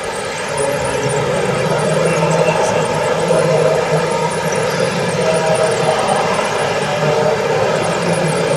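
Radio-controlled construction model's electric motor and gearing running with a steady whine, getting louder about half a second in.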